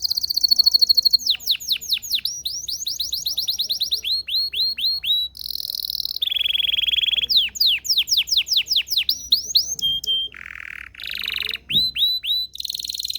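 Belgian canary singing a continuous song of rapid tours: runs of quick downward-sweeping notes, many per second, alternating with short buzzy rolls and high steady trills.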